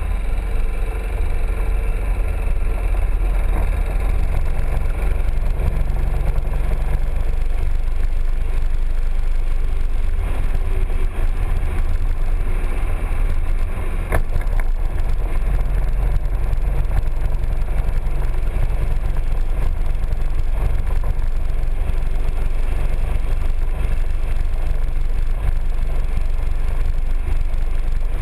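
Piaggio MP3 three-wheeled scooter on the move: its engine runs steadily under a heavy low rumble. There is one sharp click about halfway through.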